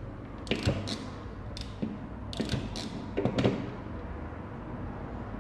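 Handling noises from car stereo harness wiring being worked by hand: a run of short clicks and rustles, clustered in the first three and a half seconds, then quieter.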